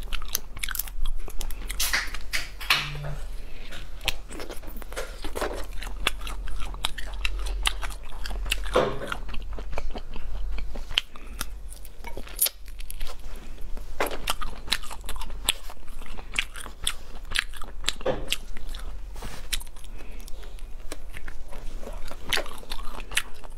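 Close-miked eating of crayfish tails in sauce: wet chewing and smacking, with many small clicks and crackles throughout.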